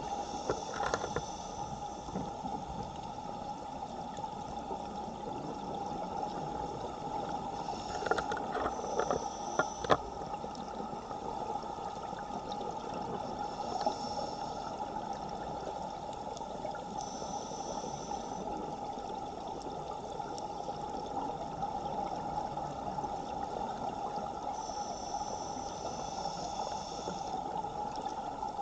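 Underwater ambience in a strong current, heard through a camera housing: a steady rush of water. A few sharp clicks come about eight to ten seconds in, and faint high hisses recur every several seconds.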